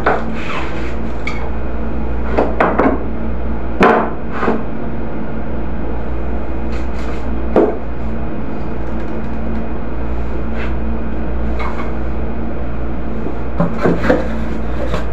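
Steady low machine hum, with scattered knocks and rubs of items being moved about on a low storage shelf; the sharpest knocks come about 4 and 7.5 seconds in.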